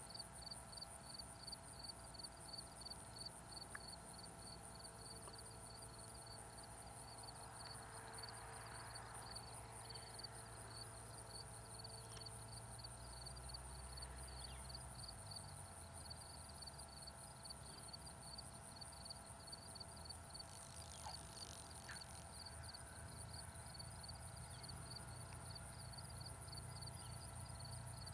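Faint outdoor ambience: insects chirring in a steady, rapid pulse over a low, distant drone. The drone fits a Cessna 172's engine at low power as it lands, and it shifts about halfway through.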